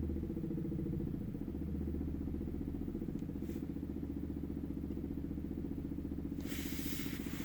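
Toyota Crown Athlete GRS200's 2.5-litre V6 running, heard from inside the cabin as a steady low drone with a fast rhythmic pulsing. The owner is recording an abnormal noise that comes into the cabin when the engine is under load and vibrating. A brief hiss sounds near the end.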